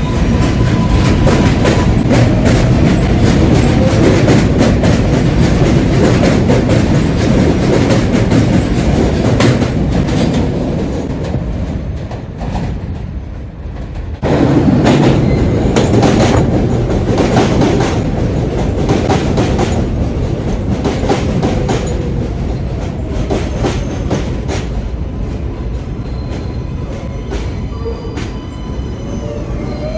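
New York City subway train running through the station: a loud rumble with rapid clicks from the wheels over the rail joints. The sound eases off, then jumps back up abruptly about halfway through, and a faint rising whine comes in near the end.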